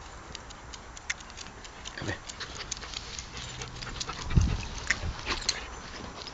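Dogs scuffling close by, their claws clicking irregularly on a concrete path, with one loud dull knock about four and a half seconds in.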